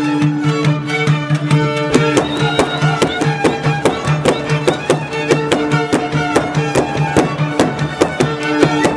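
Gyimes folk dance music: a fiddle playing a fast, repeating dance tune over a steady low drone and an even, fast beat of sharp struck strokes, typical of the gardon that accompanies the fiddle in Gyimes music.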